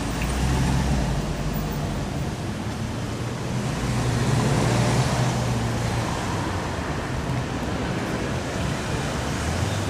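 Downtown city street ambience: a steady wash of traffic noise with engines humming, swelling as a vehicle passes about four to five seconds in.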